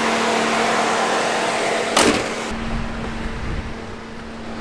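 Ford F-150 pickup's engine idling with the air conditioning running: a steady hum under an even hiss. A sharp knock comes about two seconds in, after which the hiss drops away and a lower, muffled rumble from inside the cab remains.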